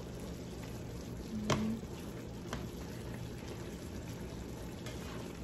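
Vegetables (squash, eggplant, okra and beans) simmering in a little liquid in a pan, a steady bubbling hiss. A sharp tap of the spatula against the pan about one and a half seconds in, and a fainter one a second later.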